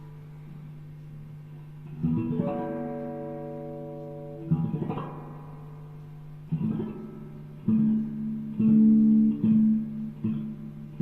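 Acoustic guitar being played: chords and notes plucked and strummed every second or two, each left to ring and fade, over a steady low tone.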